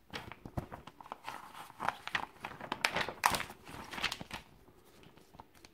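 Crinkling and rustling from something being handled, with small clicks and knocks, for about four seconds before it quietens.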